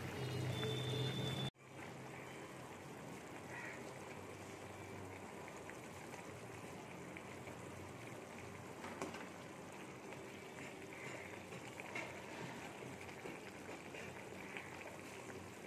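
Thin fish curry simmering in an aluminium kadai: a steady bubbling hiss with a few faint clicks of a steel spatula. About a second and a half in, a low hum cuts off abruptly and the bubbling carries on a little quieter.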